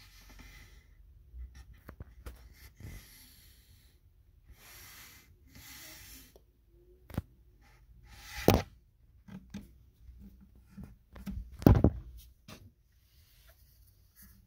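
Handling noise: scattered small knocks and clicks with soft rustling as the phone is moved about and objects are handled on a wooden desk, with two louder knocks about eight and a half and twelve seconds in.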